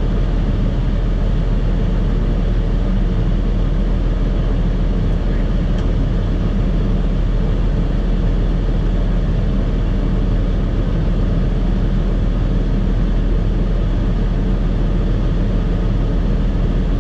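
A farm tractor's diesel engine running at a steady speed: an even, low drone that does not change.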